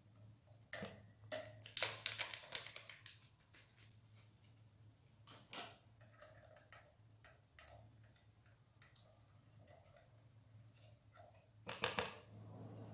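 Small metal mesh sieve tapped and scraped with a spoon as cocoa powder is sifted into a bowl of batter: faint, irregular clicks and taps, with a denser cluster a second or two in and another near the end, over a faint low hum.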